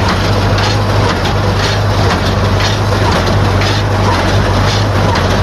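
Tractor engine running steadily under load while a small square baler works behind it, its plunger and knotter mechanism knocking in a steady rhythm of about two strokes a second.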